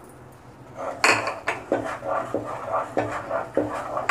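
Wooden spatula scraping and knocking against a pot while stirring a thick tomato gravy, in irregular strokes of about two a second, starting about a second in.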